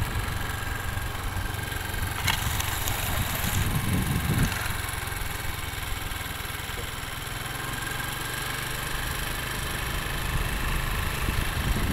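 Vehicle engine running steadily with a low rumble and road and wind noise, as from a vehicle moving along the road; a brief click about two seconds in.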